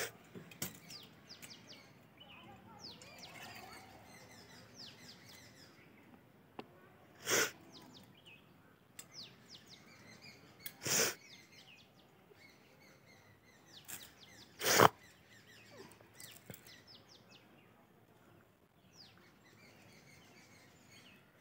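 Small birds chirping repeatedly in the background. Three short, loud rustling bursts come a few seconds apart in the middle.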